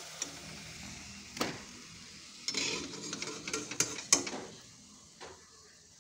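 Bread pitha patties sizzling as they deep-fry in oil in a wok. About halfway through comes a run of metal clinks and scrapes from a utensil, and the sound dies down near the end.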